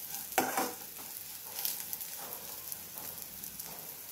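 Bitter gourd slices sizzling in oil in a metal frying pan while a metal spoon stirs and scrapes them. The scrapes come as a few separate strokes, the loudest about half a second in.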